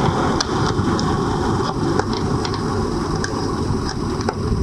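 Banana-plug test leads being pulled out of and pushed into the sockets of a training-bench panel: a few small, sharp clicks about a second apart over a steady background hiss.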